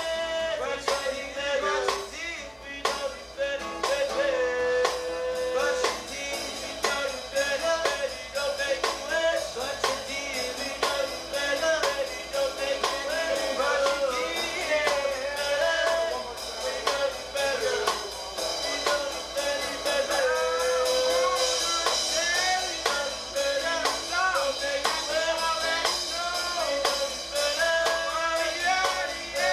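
Live acoustic band playing: a male voice singing over strummed acoustic guitar, banjo and a snare drum played by hand, with a steady beat.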